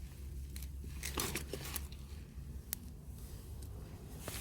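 Hands digging through potting soil in a potato container: irregular rustling and crackling with a few sharp clicks, busiest a little after a second in and again near the end, over a steady low hum.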